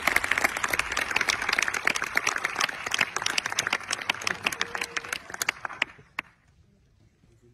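Audience applauding: dense clapping that thins out and dies away about six seconds in, with a few last claps.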